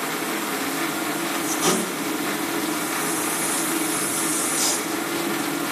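Metal lathe running under load as a cutter takes a heavy roughing cut on a spinning pen blank: a steady motor hum under the cutting noise, which grows brighter for a couple of seconds in the middle, with a sharp click a little under two seconds in.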